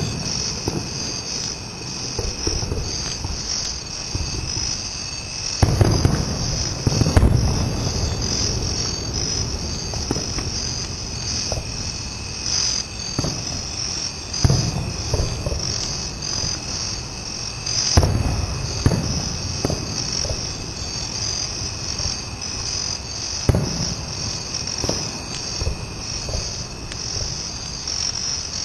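Distant fireworks booming several times, a few seconds apart, with a steady chorus of crickets chirping underneath.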